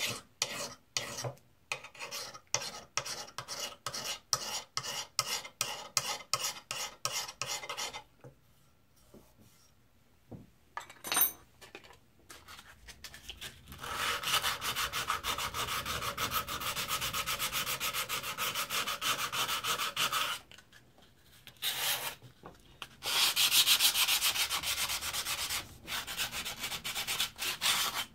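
An old drawknife's steel and wrought-iron blade being rubbed down by hand with an abrasive to clean off rust. The first eight seconds are quick back-and-forth strokes, about three a second. After a short pause the rubbing goes on steady and unbroken, louder for a stretch near the end.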